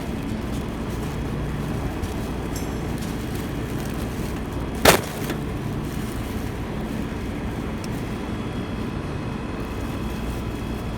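Steady low rumbling background noise, with one sharp click or knock about five seconds in.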